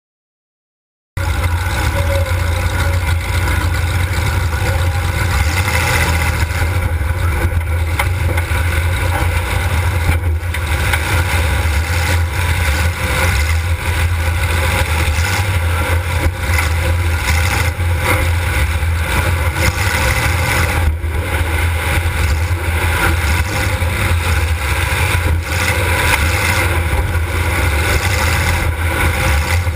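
Demolition derby car's engine running loud and steady, heard from inside the car; it cuts in abruptly about a second in.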